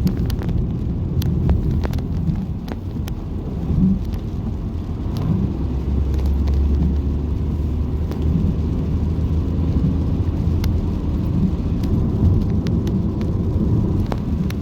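Car driving along a road: a steady low rumble of tyres and engine, with scattered light ticks.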